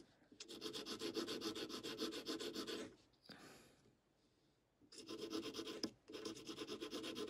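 Graphite pencil scratching across a paper Zentangle tile in quick, short back-and-forth shading strokes, about ten a second. The strokes stop for about two seconds midway, then start again.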